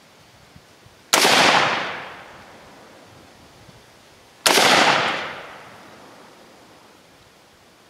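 Two shots from a DPMS AR-15 rifle firing soft-point .223 hunting rounds, about three and a half seconds apart, each a sharp crack that dies away over about a second, fired to check the rifle's zero.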